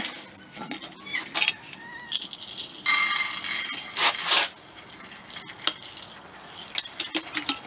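Dry cat-food kibble rattling in a small plastic cup and shaken out onto a plate and bare concrete, with scattered clicks of pieces landing. There are two denser rattling pours, about three and about four seconds in.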